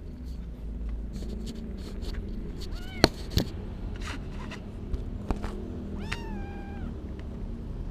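Kitten meowing twice: a short rising mew about three seconds in, and a longer meow about six seconds in that drops and then holds. A few sharp clicks fall between the calls, over a steady low hum.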